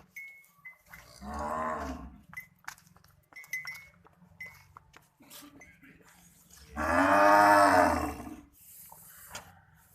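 Dairy cattle mooing twice: a shorter moo about a second in, then a longer, louder one about seven seconds in, with faint clicks between.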